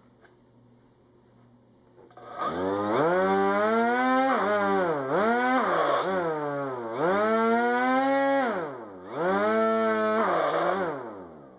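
A motor giving off a strange, loud pitched whine that starts about two seconds in. Its pitch rises and falls again and again, dipping sharply several times, then fades near the end.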